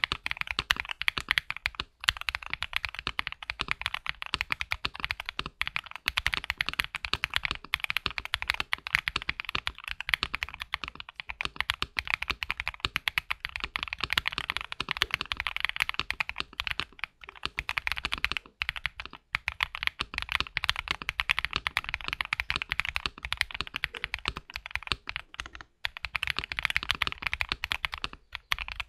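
Continuous fast typing on a mechanical keyboard with stock (unlubed) AKKO V3 Cream Yellow linear switches in an Origin 65A board, a fairly clacky run of keystrokes with a few brief pauses.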